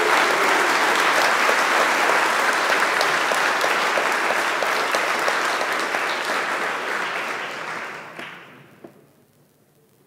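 Audience applauding, a dense run of many claps that dies away about eight seconds in, with one last stray clap.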